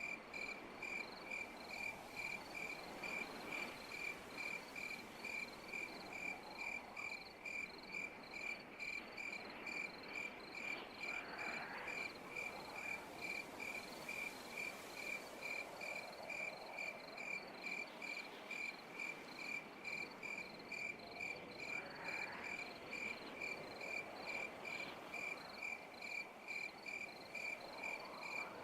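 Cricket chirping steadily at about two chirps a second, with faint rising sounds in the background every several seconds.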